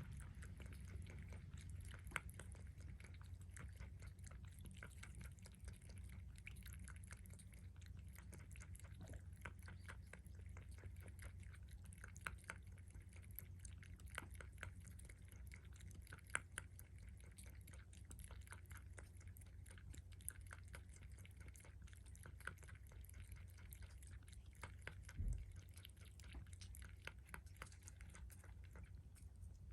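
A cat's mouth working at its bowl: faint, quick small clicks at a few per second, over a low steady hum. One soft low bump near the end.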